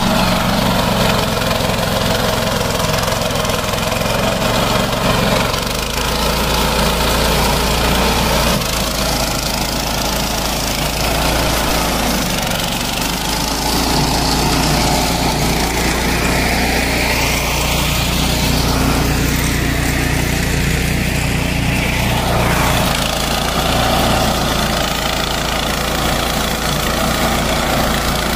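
Walk-behind mulching machine's small petrol engine running steadily under load as its cutter works through tall grass and weeds. The engine note shifts slightly a couple of times.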